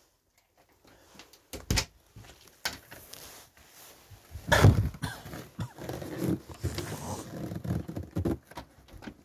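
An exterior door being unlatched and pushed open: a few sharp clicks from the handle and lock, then a heavy thump about four and a half seconds in, followed by a string of smaller knocks and rustles.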